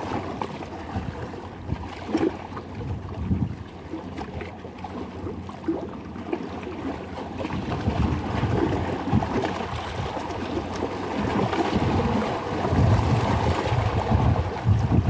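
Wind gusting hard on the microphone over the wash of sea water, growing stronger in the second half.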